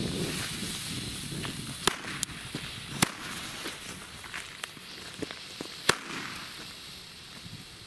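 Small firecrackers (Böller) going off one after another over the fizz of burning fuses: sharp bangs about two, three and six seconds in, with smaller cracks between them.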